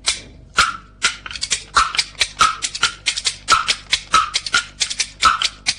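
Kuaiban bamboo clappers (the two large bamboo slabs and the small linked bamboo pieces used in kuaibanshu) played as a fast, dense run of sharp wooden clacks with louder accented strikes, the opening clapper flourish before a kuaibanshu recitation.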